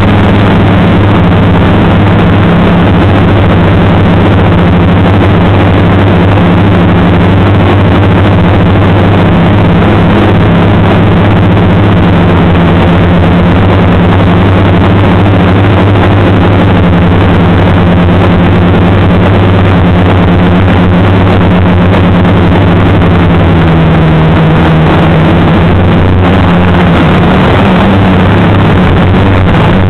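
Multirotor's brushless motors and propellers humming steadily in flight, heard through the onboard camera's microphone over a band-limited analog video link and heavily mixed with hiss. The hum shifts pitch slightly about 24 seconds in.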